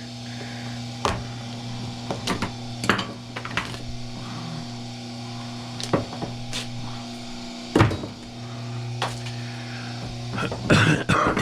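Scattered knocks and clatters of stripped aluminum cable and tools being handled, over a steady hum.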